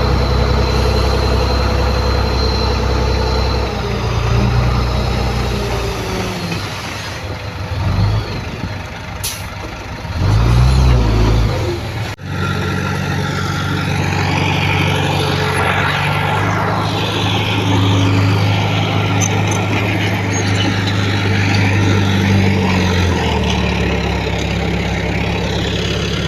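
Heavy-equipment diesel engines running steadily, the engine note shifting and dipping for a few seconds midway, with a sudden break about twelve seconds in before the steady running resumes.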